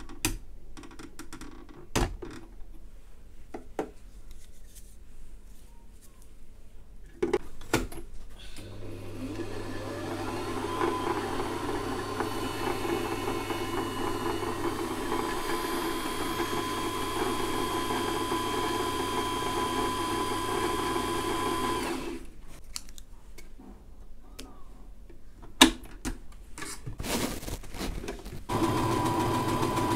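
Brother JK17B sewing machine's electric motor runs steadily for about thirteen seconds, winding the bobbin, then stops. A few clicks and knocks of handling follow, and near the end the machine starts up again to sew.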